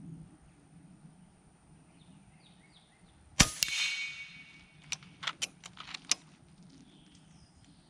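FX Impact .30 calibre PCP air rifle firing once: a sharp crack followed at once by the ringing ping of the pellet striking a steel plate target, lasting about a second. About a second and a half later come about five quick clicks as the rifle's side lever is cycled to load the next pellet.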